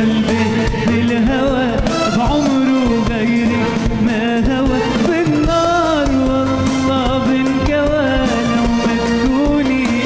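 Male singer performing an Arabic pop song live, backed by a band with drums, keyboard and guitars; a steady beat under a wavering sung melody.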